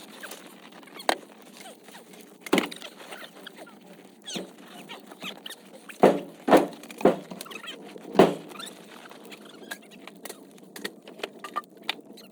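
Wood fire crackling, with scattered small clicks and several sharper pops, four of them close together in the middle stretch.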